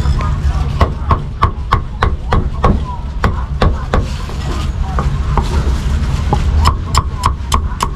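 Steel meat cleaver chopping braised pork on a thick wooden chopping block: a run of sharp knocks about three a second, thinning briefly in the middle, then quickening near the end.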